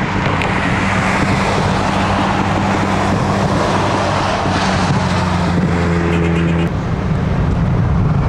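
Steady road traffic and vehicle engine hum. A higher tone joins about five and a half seconds in and cuts off suddenly about a second later.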